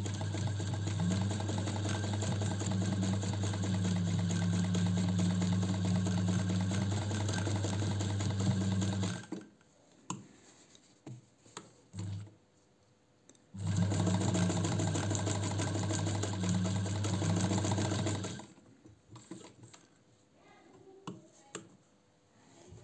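Singer 216 zigzag sewing machine's electric motor running as it sews a 4 mm-wide zigzag stitch, with a steady low hum. It runs in two goes: about nine seconds, then after a pause of about four seconds another of about five seconds, followed by a few faint handling clicks.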